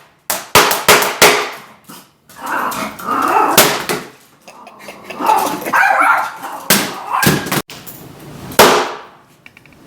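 Hard blows striking a MacBook laptop, several in quick succession at the start and a few more later. Between the blows a dog barks.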